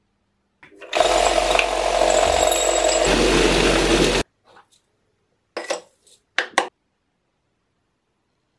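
Vibratory tumbler running with a loud, steady rattling rush of media and steel parts over a low motor hum, polishing the jack hammer's steel bits. It stops abruptly after about three seconds, followed by a few light metal clinks of the parts.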